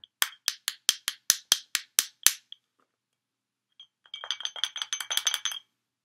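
A glass wine bottle being tapped: about nine evenly spaced ringing clinks over two seconds, then after a pause a faster, rattling run of clinks lasting about a second and a half.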